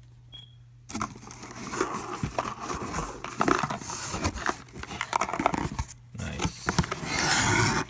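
Cardboard shipping box being torn open by hand, with its packing crinkling and rustling, starting about a second in. A longer, louder tearing stretch comes near the end.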